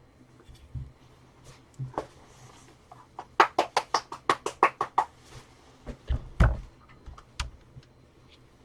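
Plastic housing of an opened Black & Decker Dustbuster handheld vacuum being shaken out to loosen trapped fur: a quick run of about a dozen sharp plastic knocks and rattles over under two seconds, with a few single knocks before and after.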